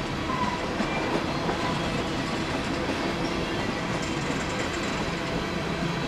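Empty steel coal hopper cars rolling past on the rails: a steady rumble of wheels on track with some clatter.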